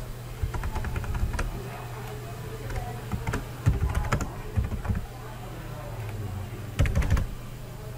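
Typing on a computer keyboard: a run of separate keystroke clicks, with louder clusters about four seconds in and again near the end, over a steady low hum.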